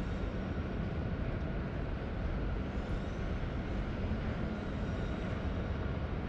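Steady low rumble of wind buffeting the microphone, with a faint outdoor city background under it.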